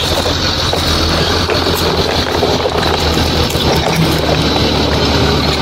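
Steady low engine drone, like a heavy engine running at an even speed.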